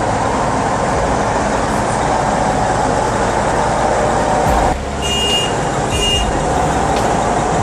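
Heavy diesel machinery running loudly and steadily. Two short high beeps, like a reversing alarm, sound about five and six seconds in.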